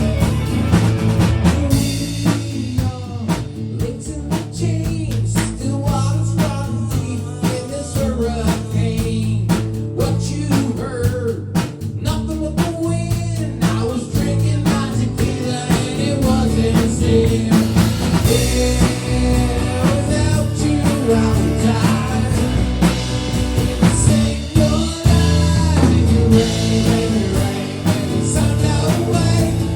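A rock song with singing over a drum kit and guitar.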